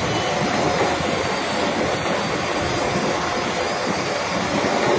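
Handheld electric router running steadily, its spinning bit cutting into a wooden panel to rout out relief carving.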